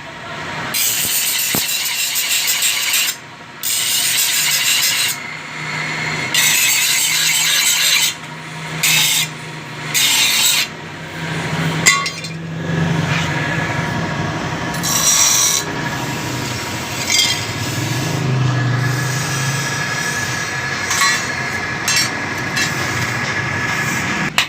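Steel being abraded in repeated rasping passes, each lasting a second or two with short breaks between, as a trowel blade is shaped and smoothed.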